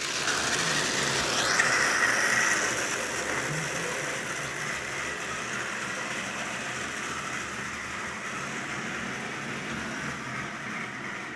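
H0-scale model train running on its track: a steady whirring rumble of the locomotive's motor and the wheels on the rails. It starts suddenly, is loudest about two seconds in, then slowly fades.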